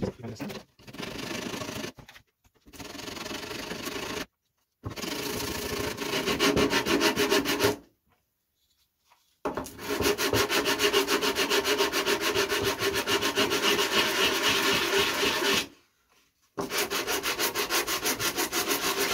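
Hand sanding block rubbed back and forth over the end of a balsa model-aircraft fuselage: runs of quick, even rasping strokes, broken by a few short pauses, the later runs louder.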